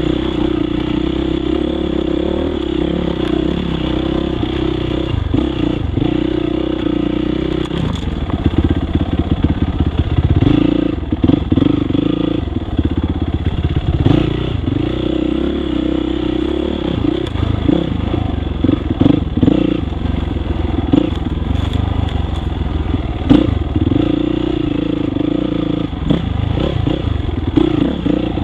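Yamaha YZ dirt bike engine running on a trail ride, the throttle opening and closing so the engine note rises and falls several times, with a few knocks and rattles from the bike over rough ground.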